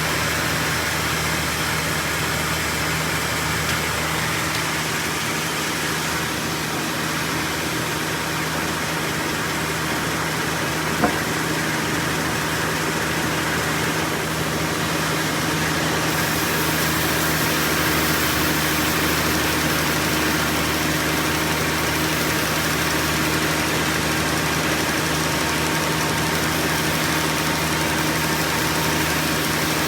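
Sawmill machinery running with a steady mechanical hum, with one brief click about a third of the way in.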